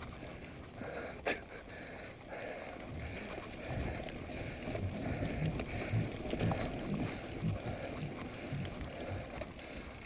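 Corratec mountain bike riding over a dirt forest trail: tyres rolling on dirt and leaf litter, with irregular knocks and rattles over bumps and a sharp click about a second in.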